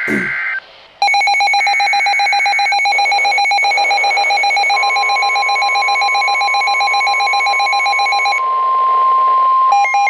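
The last of an EAS digital header burst, then weather alert radios alarming: a loud, fast pulsing beep from about a second in. About five seconds in, the steady NOAA Weather Radio 1050 Hz warning alarm tone joins it. Near the end the pulsing beep stops and a different pulsing alarm starts over the steady tone. Together they signal that a new severe thunderstorm warning is coming in.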